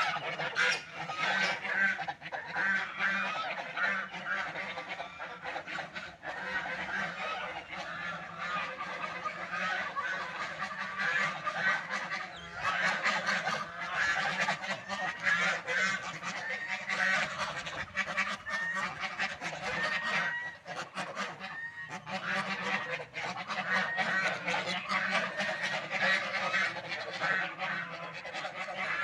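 A flock of ducks calling, many short calls overlapping without a break.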